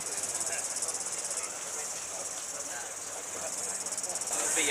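High-pitched insect buzzing in a steady chorus, with a fast pulsing in the first second and a half.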